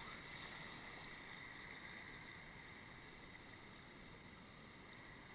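Faint, steady rush of river water spilling over a low weir and churning around the canoe, easing off slightly.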